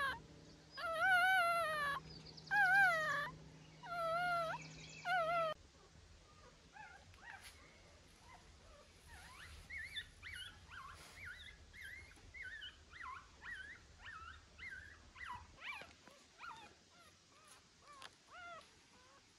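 Young puppy crying: loud, wavering whines in about five bursts of roughly a second each over the first five seconds. After that come many fainter, short high whimpers, several a second.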